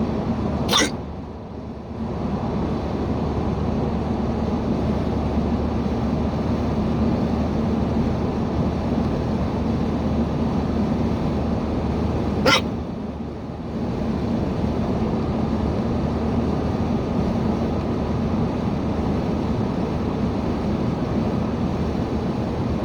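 A person hiccuping twice, about eleven seconds apart, each a short sharp catch, over the steady drone of the car's engine and road noise inside the cabin.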